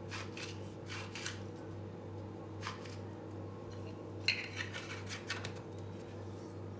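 Hand-twisted salt mill grinding pink rock salt crystals, a quick rasping crackle with each twist. The grinding comes in two spells, one in the first second or so and another from about four to five and a half seconds in.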